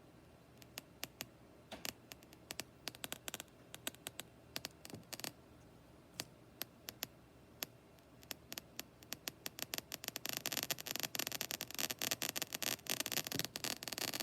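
IFM DUNST noise module putting out random crackles and clicks. They start sparse and grow denser, and about ten seconds in they turn into a thick, steady crackle.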